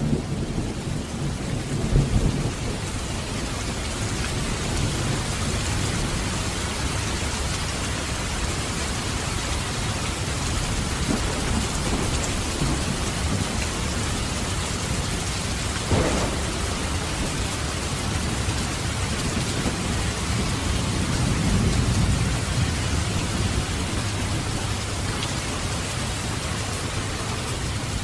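Thunderstorm: steady rain falling, with thunder rumbling low underneath. A loud rumble comes about two seconds in, a sharper crack near the middle, and another long rolling rumble later on.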